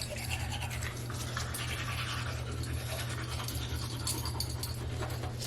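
Toothbrushing: bristles scrubbing back and forth over teeth in a steady, continuous scratching, over a steady low hum.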